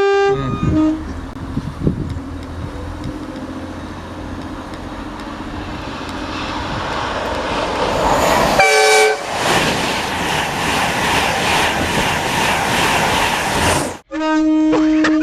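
A train approaches, its noise building steadily, and sounds a short horn blast about nine seconds in. It then passes close by with a loud rush and rhythmic wheel clatter. The sound cuts off abruptly near the end and steady horn notes follow.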